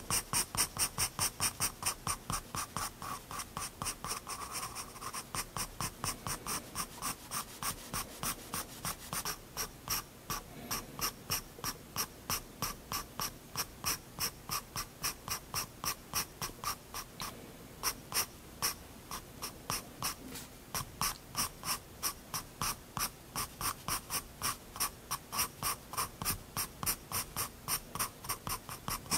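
Prismacolor Turquoise 7B graphite pencil scratching on sketchbook paper in short, quick flicking strokes, about three a second, as hedgehog spines are drawn. There is a brief pause about two-thirds of the way through.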